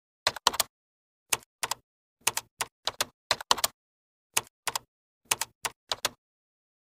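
Keyboard typing sound effect: about twenty short keystroke clicks at an uneven pace, some in quick runs, stopping about six seconds in.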